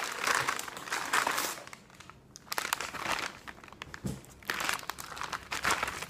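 Brown packing paper crinkling and rustling as it is pulled from a shipping box and handled, really loud, in irregular bursts with a brief lull about two seconds in.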